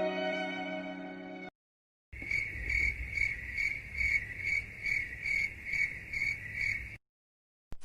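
Crickets chirping in an even rhythm, a bit over two chirps a second, starting about two seconds in and cutting off near the end. Before them the last notes of a sad violin piece fade out.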